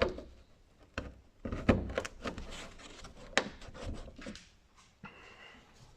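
Several sharp knocks and clicks amid rubbing and scraping: parts being handled and fitted while replacing a hood or trunk gas strut.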